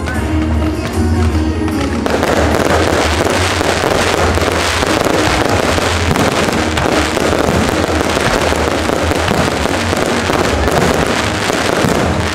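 Aerial fireworks shells bursting over music with a steady heavy bass. About two seconds in, the bursts thicken into a dense, rapid crackle that goes on without a break.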